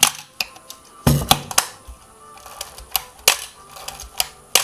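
Sharp mechanical clicks and clacks of a Petri TTL 35 mm SLR camera's mechanism worked by hand, the shutter and winding mechanism. There is a quick cluster of clicks about a second in, then single clicks spaced out. Faint music plays underneath.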